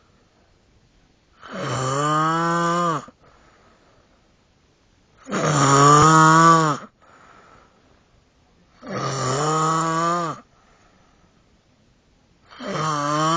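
A child snoring loudly in sleep: four long, pitched snores of about a second and a half each, one every three and a half to four seconds, each followed by a faint breath out.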